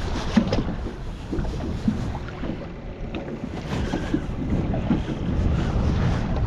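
Wind rumbling on the microphone over choppy water lapping against a small boat's hull, with scattered short splashes and knocks.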